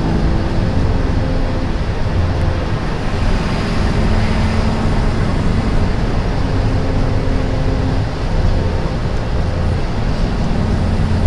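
Steady road noise heard from inside a moving car on a highway: a low rumble of tyres and engine with a hiss over it.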